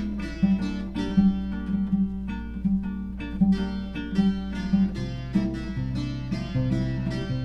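Instrumental opening of a Brazilian samba on acoustic guitar, a quick rhythmic pattern of plucked notes. Lower bass notes join about five seconds in, over a steady low hum.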